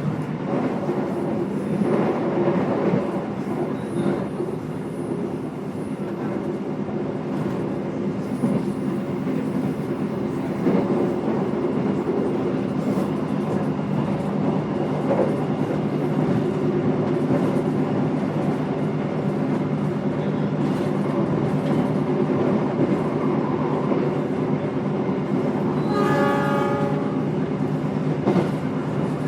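Inside a moving executive-class passenger train carriage: a steady rumble of the wheels on the rails with a low drone and occasional knocks. Near the end the train's horn sounds once for about a second and a half, heard from inside the carriage.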